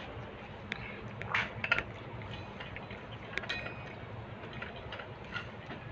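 Stainless-steel cat food bowls clinking as they are knocked and shifted while cats eat from them: a scatter of sharp clinks, one ringing briefly about three and a half seconds in.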